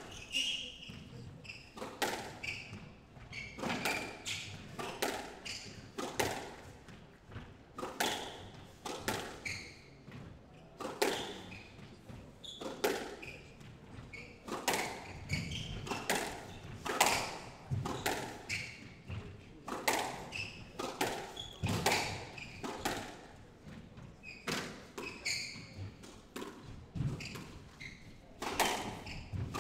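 A long squash rally: sharp thuds of the ball struck by rackets and smacking the walls, roughly one a second, with short high squeaks of court shoes on the wooden floor between them.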